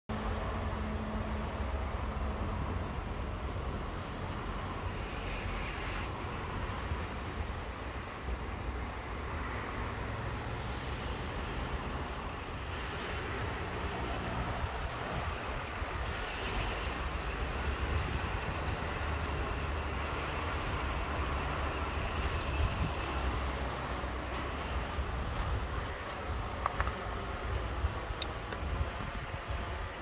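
Outdoor ambience: a steady low rumble of distant road traffic under an even hiss.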